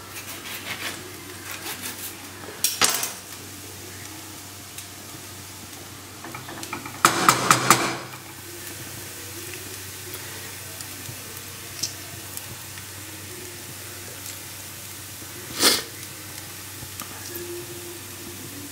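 A spoon clatters and knocks against a cooking pan while upma is stirred, over a faint sizzle. The loudest part is a quick run of four or five knocks about seven seconds in, and there is a single sharp clank near the end.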